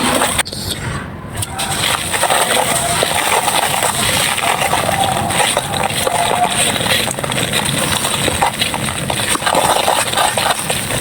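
Dry clay pieces crumbling and crunching, a dense, continuous crackle of small crisp snaps.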